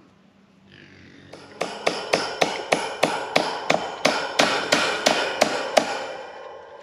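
Hammering: about fourteen ringing strikes, roughly three a second, the level swelling and then fading away.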